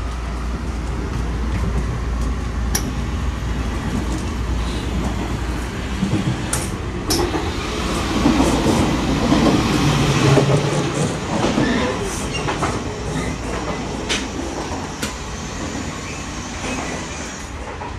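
Passenger train running on the rails: a steady rumble with sharp clicks now and then. It grows louder about halfway through, then eases off, and a deep low hum drops away about ten seconds in.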